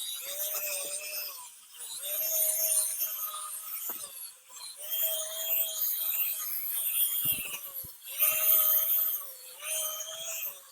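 Power drill spinning a 3000-grit sanding pad dry on a plastic headlight lens. It runs in about five stretches of one to three seconds with short stops between, a steady whine that sags in pitch as each run ends.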